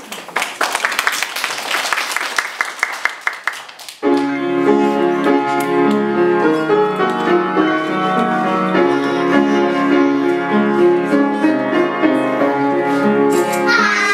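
Piano-style keyboard music playing a song's introduction, which comes in suddenly about four seconds in with steady held notes. Before it there is a rapid run of short, bright strikes.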